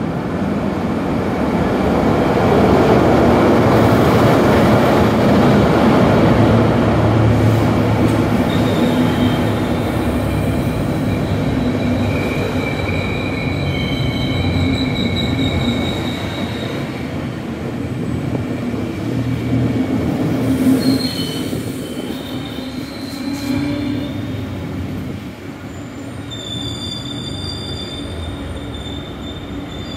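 Snälltåget locomotive-hauled passenger train pulling in along the platform and slowing down. The locomotive and coaches run past, loudest in the first several seconds. From about a quarter of the way in, high squeals from the wheels and brakes come and go as the train slows.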